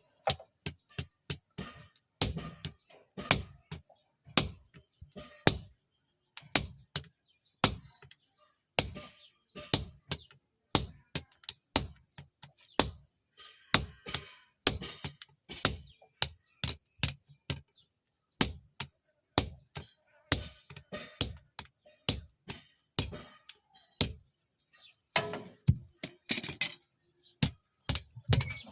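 Hammer blows on steel, struck one at a time at an irregular pace of about two to three a second, each with a short bright ring, with brief pauses between runs of blows.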